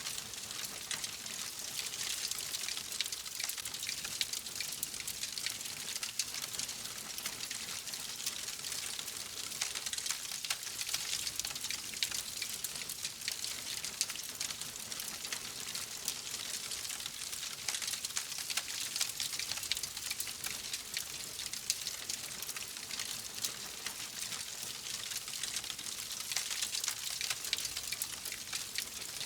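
Wood fire crackling steadily: a dense, unbroken run of small snaps and pops over a soft hiss.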